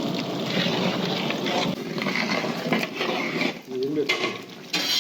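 Rice boiling and being stirred in a large biryani cooking pot, with people talking in the background.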